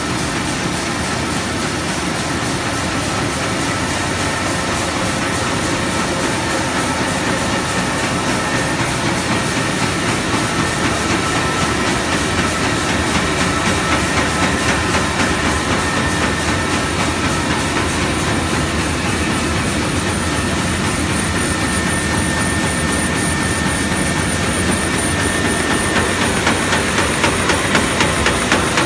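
CHM-SGT1700 synchro-fly paper sheeter running at speed: a loud, steady mechanical noise from paper web running over steel rollers into the cutter. Under it runs a faint high whine, and an even, rapid clatter grows stronger near the end.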